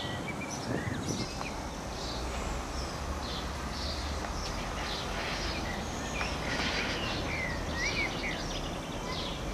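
Birds chirping and calling in short repeated notes, over a faint steady low rumble.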